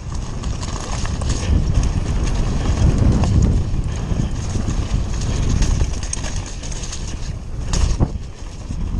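A Nukeproof Scalp downhill mountain bike ridden fast down a rough dirt trail, heard from a camera on the rider: the tyres rumble over the ground while the bike rattles and clatters over bumps.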